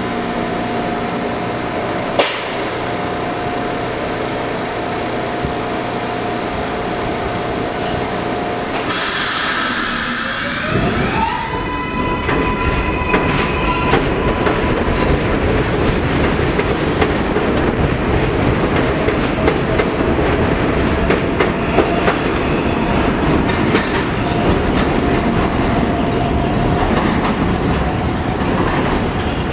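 Kawasaki R142A subway train standing with a steady electrical hum, then a hiss about nine seconds in. Its propulsion whine rises and steps up in pitch as it pulls out, followed by the rumble of wheels on the elevated track as the cars pass, with faint high squeals near the end.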